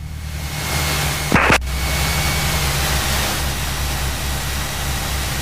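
Cessna 172's piston engine and propeller running steadily at low taxi power, heard as a low drone under steady hiss. There is one short sharper sound about a second and a half in.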